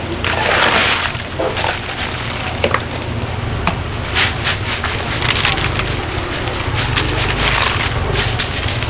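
Hard crab shells clicking and clattering against one another as blue crabs are handled and sorted, with bursts of rustling hiss, over a steady low machine hum.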